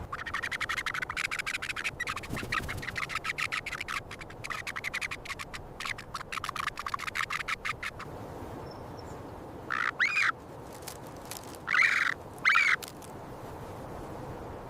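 Ravens calling: a fast, rapid run of chattering calls for about eight seconds, then three loud separate calls near the end, the last two close together.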